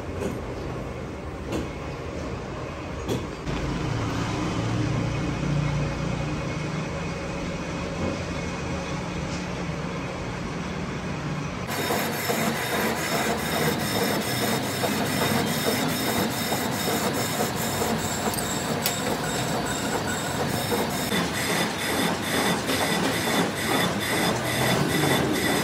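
Metalworking machinery running with a continuous mechanical clatter. About halfway through the sound changes abruptly to a fast, regular clicking over the noise.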